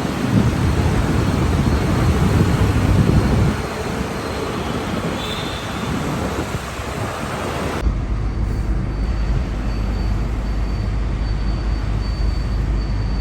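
Road vehicle noise with a loud stretch in the first few seconds. After an abrupt cut about eight seconds in, it gives way to the steady low rumble of a metro train running, with a faint high whine.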